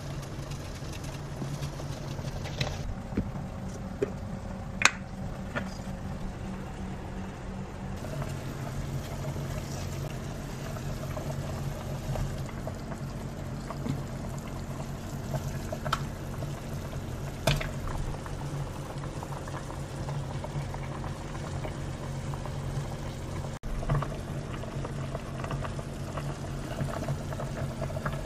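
A pot of soup bubbling at the boil on a stove, over a steady low hum, with a few sharp clicks.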